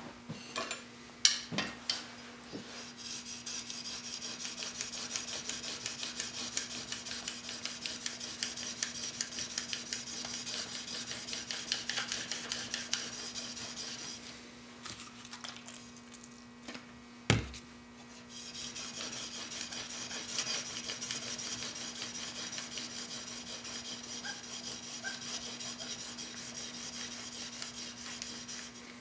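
Chisel clamped in a honing-guide jig being worked back and forth on an extra-fine DMT diamond sharpening plate: a steady gritty scraping of steel on diamond, the final honing of the edge. The scraping runs in two long spells with a pause of a few seconds in the middle, broken by a single knock; a few clicks at the start and a faint steady hum underneath.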